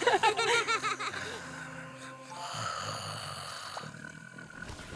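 Exaggerated cartoon snoring sound effects from two sleeping adult rabbits, with light background music; a low rumbling snore comes in about halfway through.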